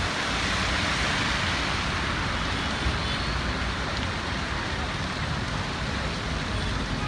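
Steady rushing noise with a low rumble: road traffic and water on a waterlogged highway.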